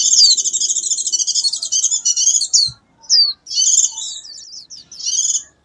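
White-eye singing a fast, high, twittering song that runs unbroken for about two and a half seconds, then, after a brief pause, breaks into shorter phrases with down-slurred notes. A short low thump comes in the pause.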